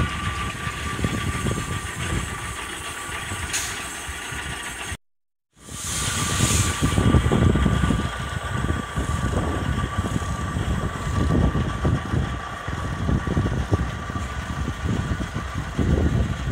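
Small narrow-gauge diesel locomotive running with a steady low rumble. The sound breaks off for half a second about five seconds in. Then a narrow-gauge steam locomotive gives a short hiss of steam and rumbles as it moves off.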